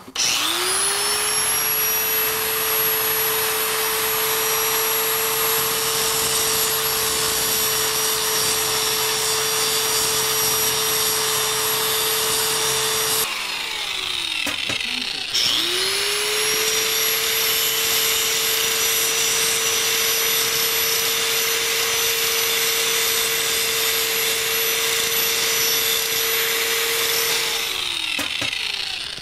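Electric angle grinder spinning up and grinding a steel bar clean before welding, with a steady high whine. It runs twice, winding down for a second or two about halfway through, then starting again and winding down near the end.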